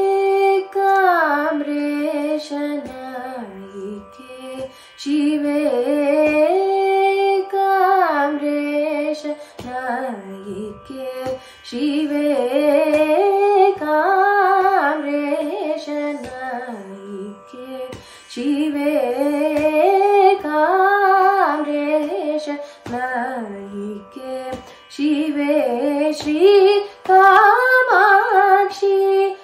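Female Carnatic vocalist singing a wordless raga alapana in Karnataka Shuddha Saveri, with sliding, ornamented phrases a few seconds long and short breaks between them, over a faint steady drone.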